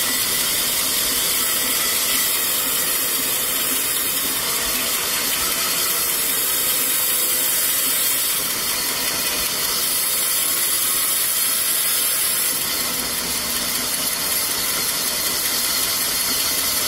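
Large vertical band saw ripping a thick koroi wood slab that is pushed through the blade by hand: a steady, loud, high hissing whine of the blade in the cut. The hiss rises and falls a little in the second half.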